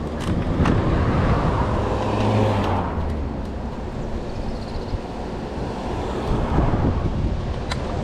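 A car passes on the road alongside during the first few seconds, over steady wind rumble on the microphone and road noise from a moving electric scooter. A couple of sharp clicks come near the end.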